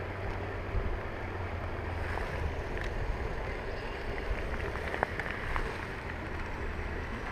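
Steady low rumble of wind and outdoor ambience on the microphone, with a few faint clicks from the fish lip grip and scale being handled.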